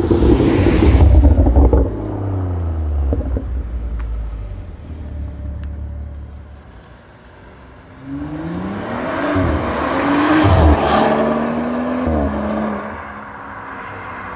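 BMW N55 turbocharged straight-six exhaust under hard acceleration, loud at first and fading over several seconds. About halfway through a second full-throttle run starts, rising in pitch with a break at each of three quick upshifts, then fades.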